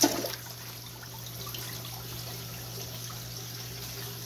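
Aquarium filter water trickling and splashing into the tank over a steady low pump hum. A brief loud burst of noise comes right at the very start.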